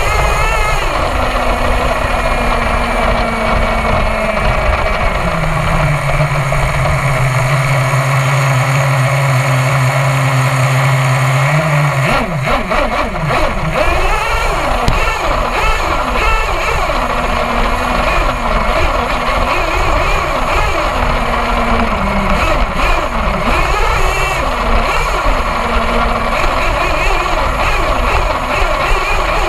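HPI Savage XL nitro RC monster truck's glow-plug engine running, heard from a camera mounted on the truck. It holds a steady drone for the first dozen seconds, then the pitch rises and falls as the truck drives over grass.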